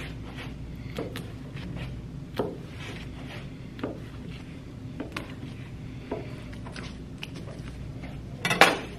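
Chef's knife slicing a raw salmon fillet into portions, the blade knocking on a plastic cutting board with each cut: about five short knocks a second or more apart, then a louder, longer clatter near the end.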